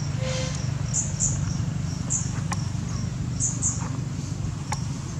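Outdoor ambience: a steady low rumble, with short high-pitched chirps repeating irregularly and a couple of faint clicks.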